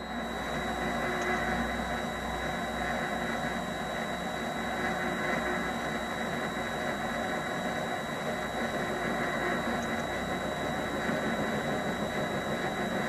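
MX-210V mini lathe running at a steady speed, its spindle turning a rubber workpiece in the three-jaw chuck: an even machine whir with a thin, steady high whine over it.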